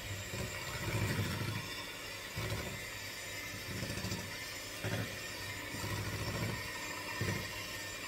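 Electric hand mixer running, beating cake batter in a bowl; the motor's steady hum swells and drops unevenly.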